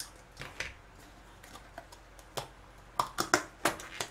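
Sharp clicks and crackles of thin plastic as lids are pried off small takeout sauce cups: a few scattered clicks, then a quick cluster of them about three seconds in.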